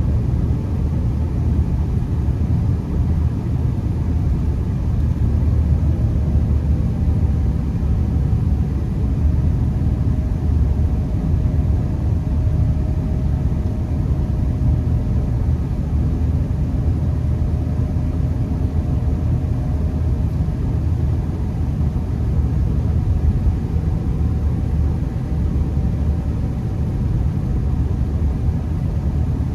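Honda Accord driving on a snow-covered road, heard from inside the cabin: a steady low rumble of engine and tyre noise.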